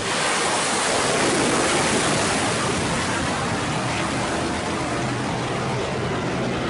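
Tomahawk cruise missile's solid-fuel rocket booster firing as the missile launches from a warship and climbs away: a loud, steady rushing noise.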